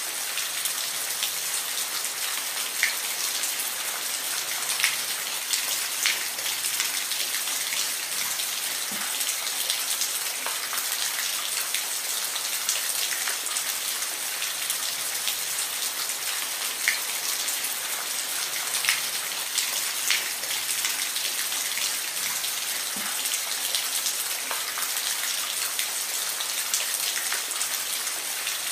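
Steady rain, a continuous hiss dotted with sharp individual drop ticks.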